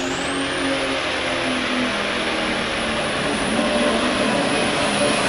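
Pro stock pulling tractor's turbocharged diesel engine at full power under the load of the weight sled, with a high turbocharger whine that climbs over the first half second and then holds steady.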